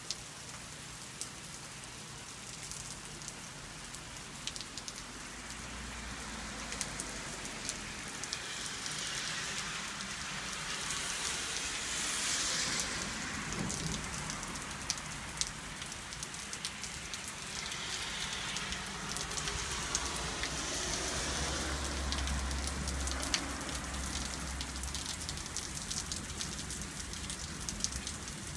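Steady rain falling, a constant hiss with individual drops clicking close by. The rain swells in the middle and again later, and a low rumble comes in underneath twice.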